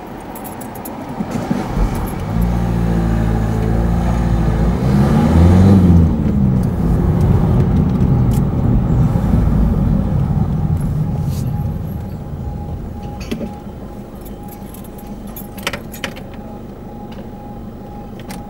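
A motor vehicle passes close with its engine running, loudest in the first half and fading by about twelve seconds in. Then the level crossing's alarm comes through as a thin warning tone that repeats in regular short pulses, while the crossing is closed with its barriers lowered.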